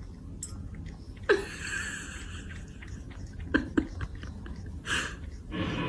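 A cat scooping water from a bowl with its paw and licking it off: soft wet licking and small splashes, with a few sharp clicks in the middle and short rushes of noise early and near the end.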